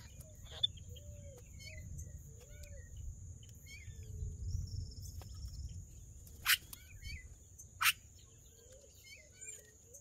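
Several birds calling: a run of short low hooting notes about twice a second, scattered high chirps, and two loud sharp calls about six and a half and eight seconds in, over a steady high thin whine.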